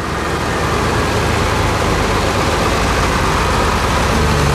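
Heavy diesel engine idling steadily, a low, even rumble fading in over the first second.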